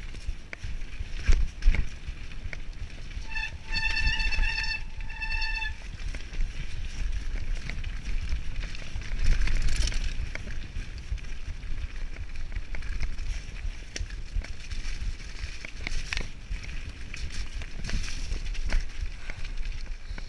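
Mountain bike riding down a rough forest dirt trail: tyres rolling over gravel and the bike rattling with frequent knocks over bumps, with wind rumbling on the microphone. About three to six seconds in, a steady high squeal comes in three short pieces, typical of disc brakes squealing under braking.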